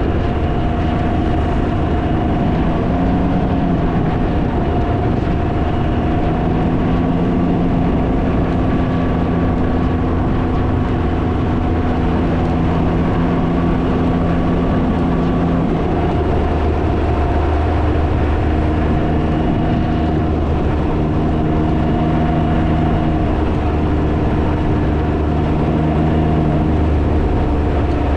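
Can-Am Ryker three-wheeler's engine running at cruising speed, under heavy wind rumble on the microphone. About halfway through the engine note changes and the wind rumble grows heavier.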